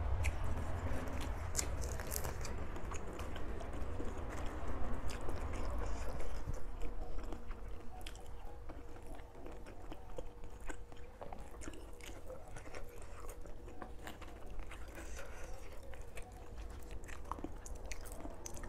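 Close-up chewing and biting of a spicy rice-noodle salad with fresh lettuce leaves, with crunching and many wet mouth clicks; it is busiest in the first half.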